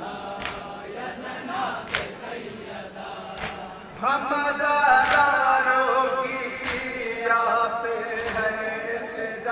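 Male voices chanting a nauha, a Muharram lament. About four seconds in, the chant grows much louder. Sharp slaps keep a slow, even beat, about one every second and a half.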